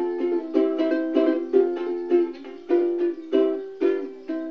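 Ukulele strummed in a rhythmic chord pattern, with loud accented strokes about twice a second.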